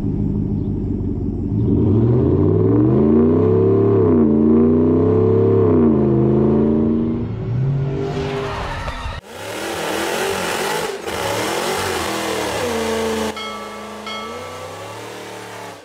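V8 engine revving repeatedly through an aftermarket exhaust, its pitch rising and falling over several revs. About nine seconds in, the sound cuts to a thinner, higher engine note with much less bass.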